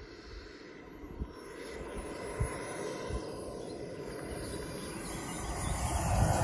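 Kingtech K100 model jet turbine of an RC Scorpion sports jet on its landing approach, growing steadily louder as the jet nears. A thin high whine slowly falls in pitch. A few low thumps come in the first few seconds.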